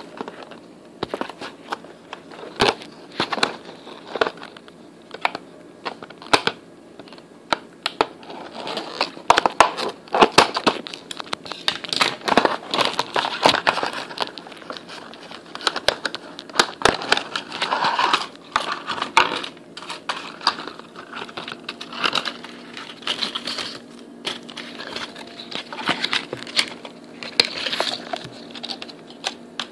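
Close handling noise of fingers on and around the recording phone: irregular clicking, tapping and rustling, in quick uneven runs.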